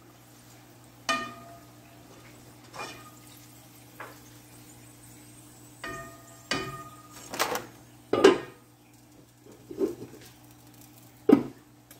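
A metal skimmer knocking and clinking against a metal pot and a foil pan while fried food is lifted out of the oil: about nine separate sharp knocks spread out over the time, a few of them ringing briefly.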